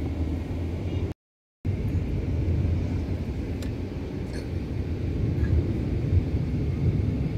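Steady low rumble of a moving road vehicle, heard from inside as it drives along; the sound cuts out for about half a second about a second in.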